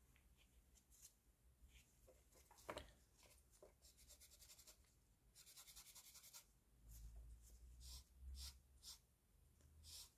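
Faint scratching and rubbing strokes with a few light clicks, as of hobby tools working small plastic model-kit parts.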